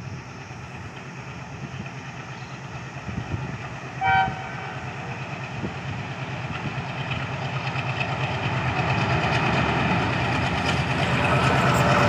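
ALCO WDG-3A diesel locomotive's 16-cylinder engine chugging as it approaches, growing steadily louder, with a short horn toot about four seconds in.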